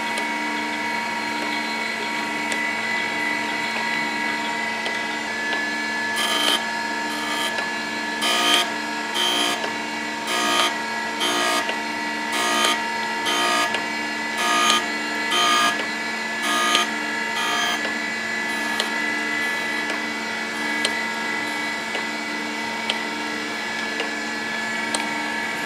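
Surface grinder running with flood coolant: a steady motor hum throughout, and from about six seconds in to about eighteen seconds a short grinding rasp roughly once a second as the wheel passes over a steel blade on each stroke of the table.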